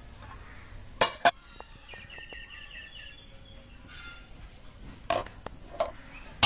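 Steel kitchen utensils being handled: two sharp metal knocks about a second in, then a few light ticks and two clinks near the end. A bird chirps briefly in the background around the middle.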